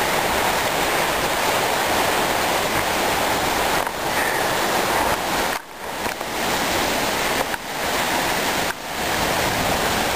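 Waterfall rushing: a loud, steady roar of falling water that dips sharply for a moment three or four times in the second half.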